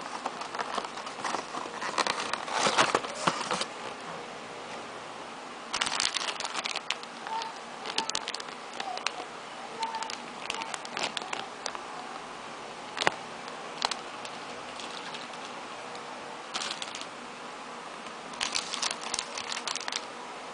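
Packaging being handled: plastic wrapping crinkling and rustling in irregular bursts, with scattered sharp clicks, the loudest about two-thirds of the way through.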